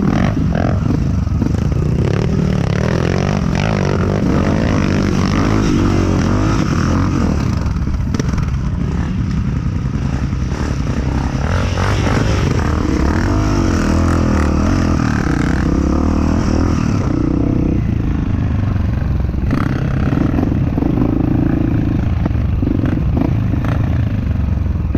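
Off-road trail vehicle's engine running under load through mud and rough ground, its pitch rising and falling as the throttle is worked.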